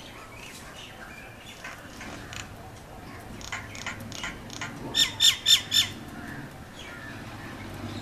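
Common myna calling: a run of quieter calls, then four loud calls in quick succession about five seconds in.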